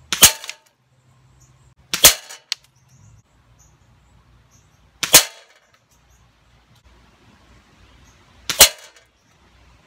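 QB78 CO2 air rifle firing four shots, irregularly spaced over about nine seconds. Each sharp crack is followed a fraction of a second later by a fainter knock, the pellet striking the steel rooster target.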